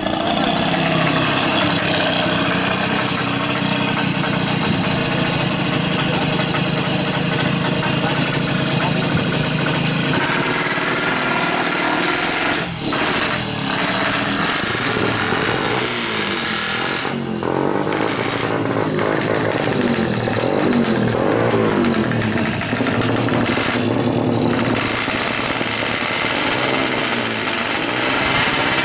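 Yamaha F1ZR two-stroke engine, bored to 116 cc and tuned for drag racing, running through an open racing exhaust. It runs steadily at first, then from about ten seconds in it is revved up and down repeatedly.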